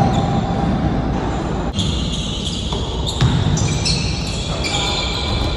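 Basketball game sounds: a ball bouncing on the court, with a run of short, high-pitched squeaks that start and stop abruptly.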